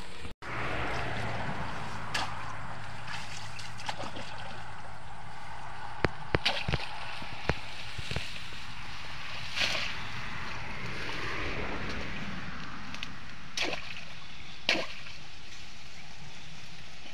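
Shallow muddy water sloshing as hands work through it, with a few short splashes and sharp knocks over a steady outdoor hiss.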